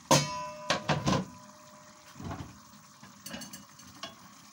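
A pan lid set down with a sharp, ringing clank, then a few knocks. Softer clicks follow as a wooden spatula scrapes through simmering tomato sauce in a frying pan.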